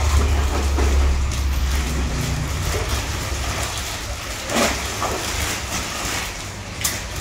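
Steady low hum and hiss of aquarium aeration, with air bubbling through the tank water. The hum is heavier in the first couple of seconds. A short rustle-like sound about halfway through and another near the end come as a plastic fish bag is handled and emptied into the tank.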